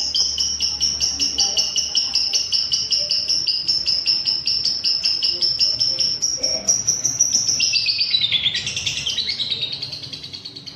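Lovebird in 'ngekek' song: a long unbroken run of sharp, high chirps, about four or five a second. About eight seconds in it breaks into a faster chatter that falls in pitch, then fades away near the end.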